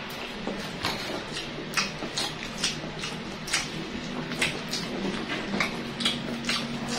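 Close-miked eating sounds: chewing and sharp, irregular mouth clicks and smacks as fried chicken drumsticks and rice are bitten and chewed by hand, over a steady low hum.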